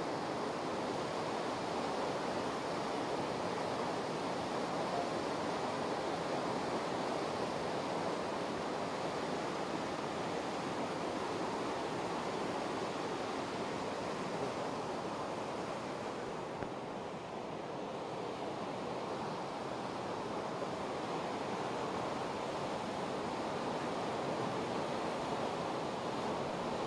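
Floodwater rushing through a river barrage's open gates: a steady, unbroken rush of churning water.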